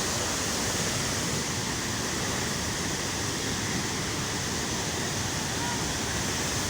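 Murchison Falls on the Nile, water pouring steadily down the falls in an even, unbroken rush of noise.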